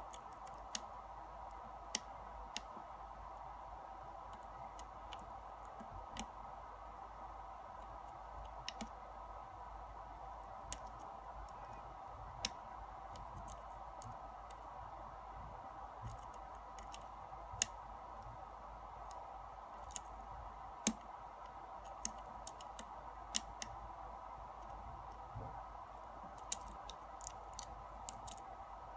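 Sharp, irregular metal clicks of a hook pick working the pins inside a brass Yale pin-tumbler lock cylinder during single-pin picking, coming more often near the end. A steady faint hum runs behind.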